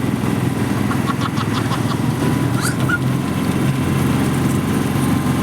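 A small motor running steadily with a low, even hum. A quick run of light ticks comes about a second in, and a brief high chirp comes near the middle.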